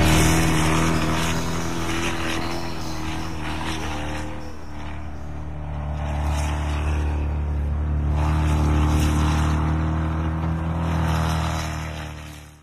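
Toyota Land Cruiser V8 engine running as the truck drives, a steady low drone that swells and eases, then fades out at the end.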